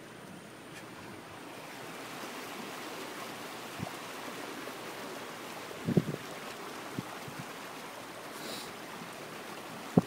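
Floodwater swishing and washing steadily around a vehicle as it drives through a flooded street. A few short dull knocks come about six seconds in and again near the end.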